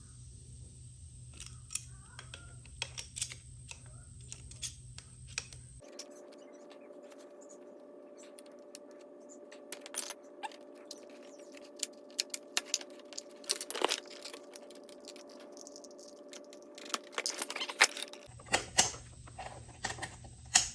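Irregular clicks and light metallic clinks of air-hose fittings and adapters being handled and screwed together, busiest and loudest near the end, over a steady background hum that changes twice.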